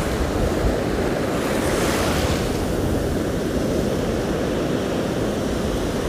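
Surf breaking and washing up a sandy beach, with one wave swelling louder about two seconds in. Strong wind buffets the microphone, adding a low rumble.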